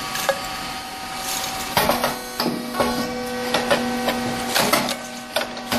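SYP4506 rice cake popping machine running, puffing black rice: a steady mechanical hum with a string of sharp pops and clacks as the hot mould presses and releases. A lower steady tone joins the hum about two seconds in.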